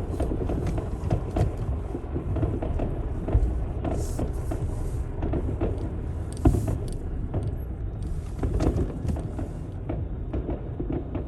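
Car driving, with a steady low road rumble and scattered short clicks and knocks, the loudest about six and a half seconds in.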